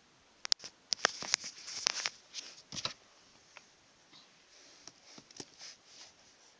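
Handling noise: a quick run of sharp clicks, taps and short rustles in the first three seconds, then a few fainter scattered clicks.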